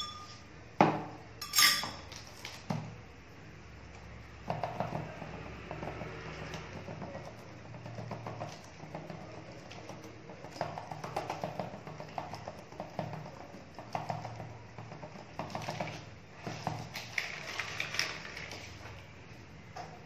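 A metal spoon clinks against a small steel bowl of oil three times in the first couple of seconds. After that come many soft, irregular pats and crinkles as hands press ragi dough flat on a plastic sheet.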